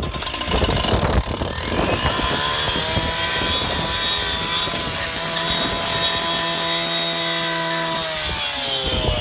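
Petrol cut-off saw revving up and held at high speed while its disc cuts along the roof beside the chimney, a loud steady engine whine over cutting noise. Near the end the engine drops back and its pitch falls.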